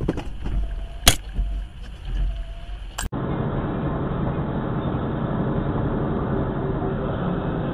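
Low wind rumble with one sharp crack about a second in. After an abrupt change about three seconds in, the steady in-cab road and engine noise of a vehicle driving on a snowy highway.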